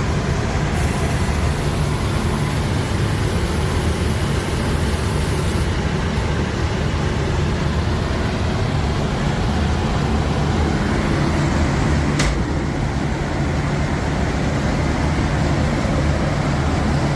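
Factory machinery running with a steady, loud noise that is heaviest in the low end, with one sharp click about twelve seconds in.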